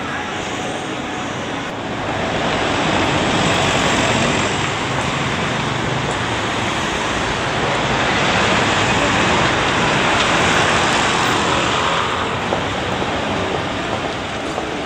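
Steady wash of city street noise, traffic and passing people blended together, growing louder about two seconds in.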